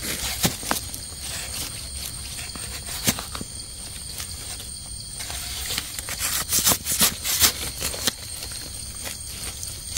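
Dry leaf litter and twigs rustling and crackling underfoot or under hand while foraging on the forest floor. Irregular sharp crackles and snaps sound over a faint steady hiss, with a run of louder ones about six to seven and a half seconds in.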